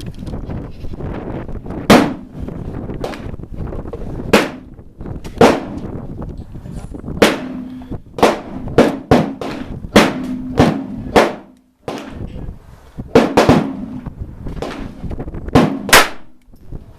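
Walther P22 .22 LR pistol firing a string of single shots, loud sharp cracks about half a second to two seconds apart, with a short pause about two-thirds of the way through.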